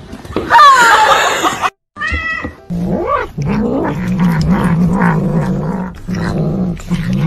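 A domestic cat growling low and steady while it eats, the growl wavering in pitch and starting a few seconds in. Before it, near the start, comes a short loud cat cry.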